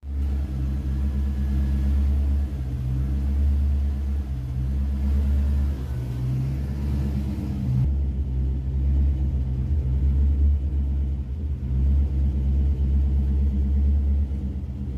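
AMC 360 cubic-inch (5.9 L) V8 running steadily at idle, a deep continuous rumble with no revving. The sound shifts abruptly about eight seconds in.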